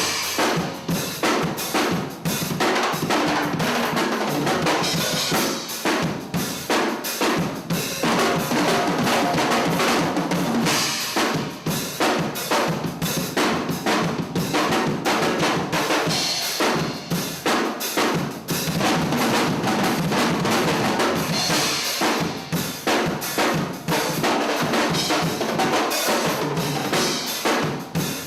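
Drum kit played nonstop in a dense, busy groove, with bass drum, snare and rimshot strikes coming thick and fast.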